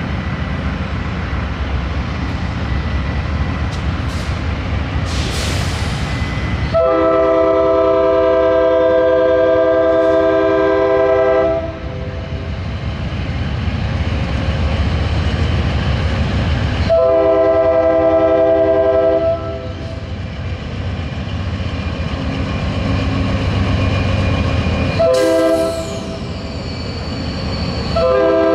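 Amtrak GE Genesis diesel locomotive sounding its horn for the grade crossing: a long blast, a second long blast, a short one, and a fourth just starting at the very end. Under the horn is the steady rumble of the diesel engine pulling the train away from a stop. There is a brief hiss about five seconds in.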